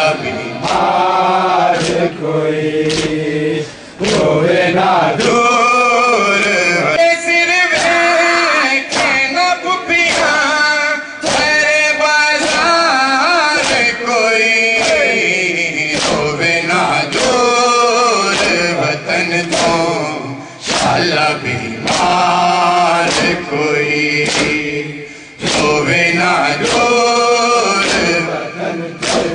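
A man chanting a noha, a Shia mourning lament, in a drawn-out melodic line with a group's voices joining, broken by short pauses between lines. Sharp beats at a fairly even pace of about one a second run under the chant.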